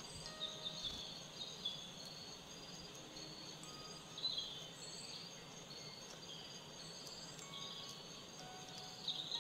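Quiet ambient soundtrack of scattered, softly held tones at different pitches, with high chirps and short repeated trills over a faint hiss.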